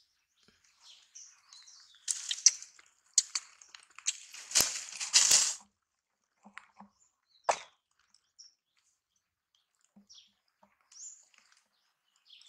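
Crackling rustle of dry leaf litter in short loud bursts for about four seconds, then a single sharp snap, with faint bird chirps now and then.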